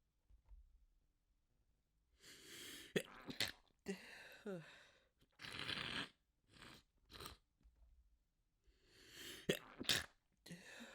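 A person's induced sneeze fit, brought on with chhinkni sneezing powder and by hand. After a couple of quiet seconds come several sneezes with drawn-in breaths before them and short breaths between, the sharpest about three seconds in and again near the end.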